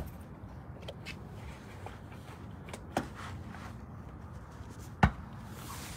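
Rustling handling noise, a recording phone brushing against surfaces, with a few light knocks and one sharp click about five seconds in.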